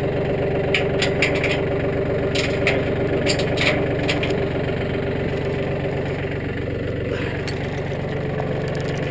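Tractor engine idling steadily, with metal chain links clinking and rattling in several short bursts in the first half as a chain is handled and hooked to the loader bucket.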